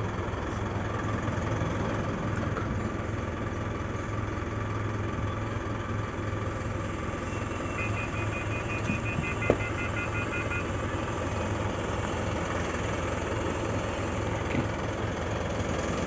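Isuzu truck's 4JJ1 four-cylinder diesel engine running steadily as the truck is backed up. About 8 s in, a rapid high beeping starts and lasts about three seconds, with a single knock partway through.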